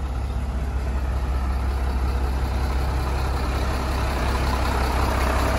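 UD Nissan truck's diesel engine running steadily with a deep, even low hum.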